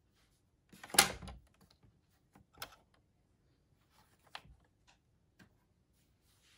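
Hands working a plastic circular knitting machine while tucking a cut yarn end inside between its needles. There is a sharp click about a second in, then a few softer clicks and knocks.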